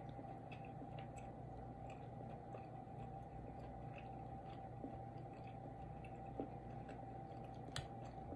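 Faint close-mouthed chewing of lobster meat, small soft clicks over a steady background hum, with one sharper click near the end.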